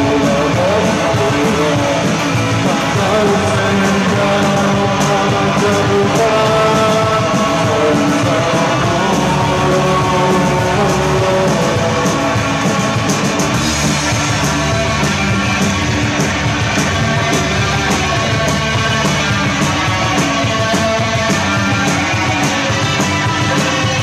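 Rock band playing live: loud electric guitars over a steady drum beat, with a voice singing.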